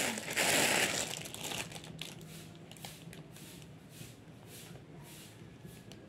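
Clear plastic packaging bag crinkling as a pair of trousers is pulled out of it, loudest for the first second and a half, then fading to faint scattered rustles.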